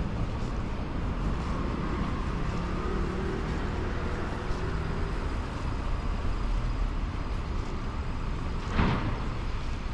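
City street traffic: a steady rumble of passing vehicles, with an engine's hum going by in the middle. A short loud rush of noise comes near the end.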